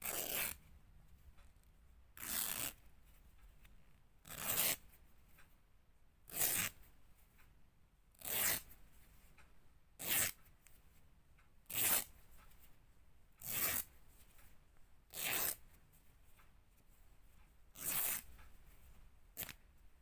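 Fabric being ripped, a series of about eleven short tears, each about half a second long, coming roughly every two seconds with quiet between them.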